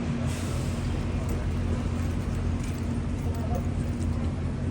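Outdoor street ambience: a steady low traffic rumble with a steady hum, and faint voices in the background.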